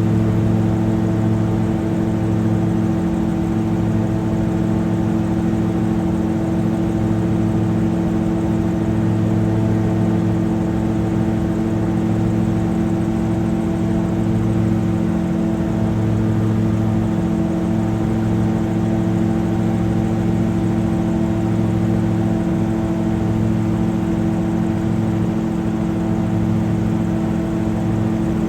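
Multirotor drone's motors and propellers running in flight: a steady, unchanging hum with a slow pulsing about every two seconds.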